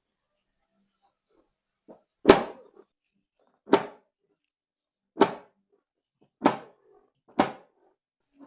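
Five sharp thumps, about one to one and a half seconds apart, the first the loudest.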